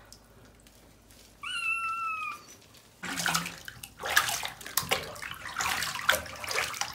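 Maine Coon kitten gives one long, high meow about a second and a half in. From about three seconds in, bath water splashes and sloshes in the tub as hands scoop it over the wet kitten.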